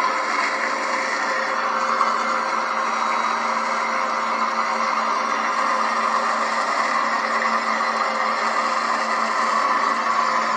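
A motor running steadily, a continuous whirring noise with a constant hum under it.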